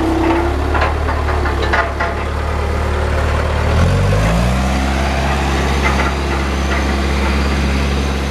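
An engine running steadily, with a few clanks in the first couple of seconds. About four seconds in its speed rises and then holds higher.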